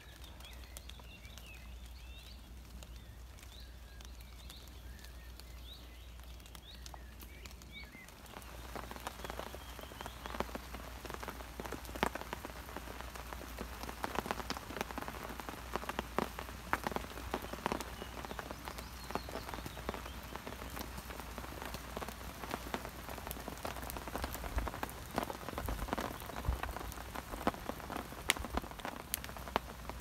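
Rain falling on leaves and ground, with the patter of single drops; it comes down harder about eight seconds in.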